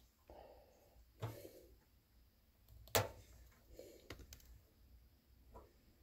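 Faint handling clicks and knocks of small hard objects, a few irregular ones with the loudest about three seconds in, over a low background hum.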